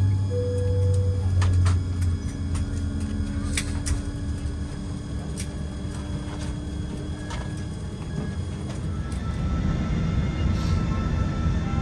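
Airliner cabin noise while the plane taxis after landing: a steady low engine rumble, strongest in the first two seconds, with a few sharp clicks from the cabin. Soft music comes in near the end.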